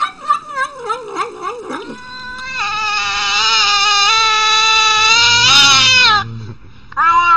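Domestic cats calling: first a quick run of short warbling cries, then one long, loud, drawn-out yowl of about four seconds. A fresh meow starts near the end.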